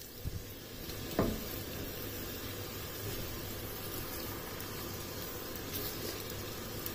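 Sliced onions sizzling steadily in hot oil in a stainless steel pan as they are stirred with a silicone spatula, with a light knock or two in the first second or so.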